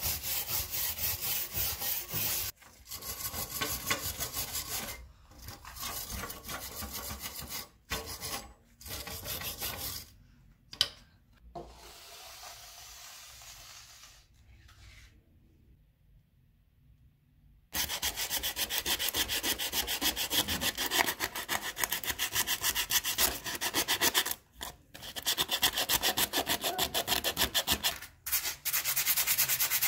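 A wire brush scrubbing a rusty sword blade back and forth through a gritty powder, in rapid strokes broken by short pauses. After a quiet stretch in the middle, sandpaper is rubbed rapidly over the sword's metal near the hilt.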